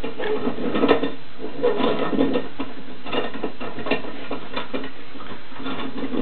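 Irregular light knocks, clicks and scrapes as a glass pane is worked into a clamped wooden window frame and the pipe clamps across it are handled.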